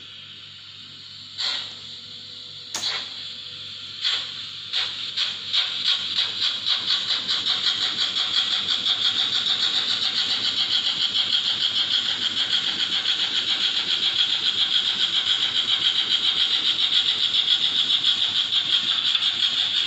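Model steam locomotive's sound decoder chuffing, the hissing beats slow and widely spaced at first, then quickening into a rapid steady chuff. A sharp click comes between the first beats.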